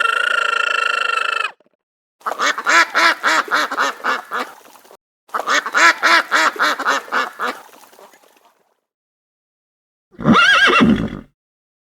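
Farm animal calls: a steady held call ends about a second and a half in, followed by two runs of rapid quacking from a duck. Near the end comes a short horse whinny.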